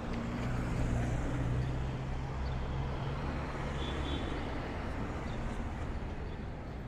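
City street traffic: a motor vehicle's low engine hum passes close by, loudest about a second in and then fading, over a steady wash of road noise.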